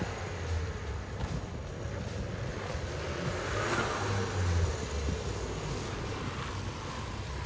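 Motor vehicle running on the road, with a louder sweep of noise that rises and falls about halfway through.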